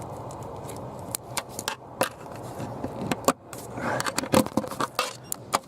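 A screwdriver poking and scraping around a broken glove box latch behind the dashboard, fishing for the latch's release arm: irregular sharp clicks and knocks with short scrapes in between.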